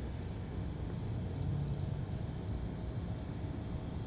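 Crickets and other night insects chirping: a continuous high trill with a regular pulsing chirp over it, a few pulses a second, above a steady low rumble.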